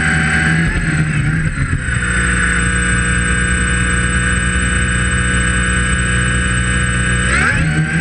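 Tricopter's brushless motors and 11-inch propellers whirring in flight, a steady multi-tone drone that shifts pitch with throttle changes, with a quick rise in pitch near the end.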